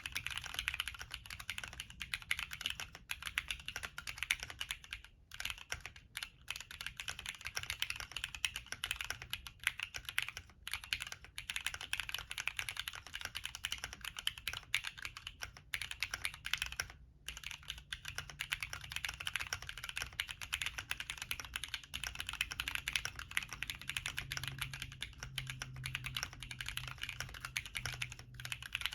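Continuous typing on a CannonKeys Bakeneko60 mechanical keyboard with lubed Cherry MX Black linear switches and Cherry-profile PBT keycaps, a fast stream of keystroke clacks with brief pauses now and then.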